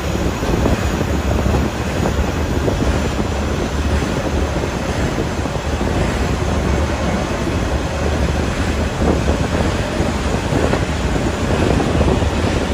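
Steam-hauled passenger train running, heard from inside a carriage: a steady low rumble with the rattle of the coach.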